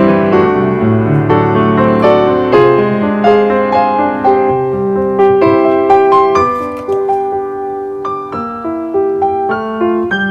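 Background piano music, with a melody and accompaniment of struck notes that die away.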